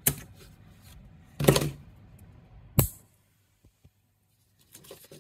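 Three sharp clicks and knocks of small hand tools and a USB stick being handled and set down on a hardboard workbench, the loudest about a second and a half in, then a few faint ticks.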